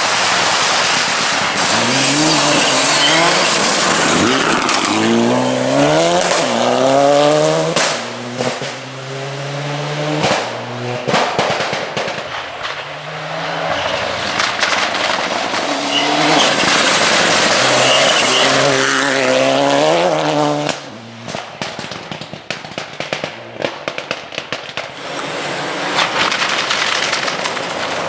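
Mitsubishi Evo rally car's turbocharged four-cylinder engine accelerating hard twice, its pitch climbing in steps through the gears. Each time it lifts off, the anti-lag system sets off a string of sharp bangs and crackles.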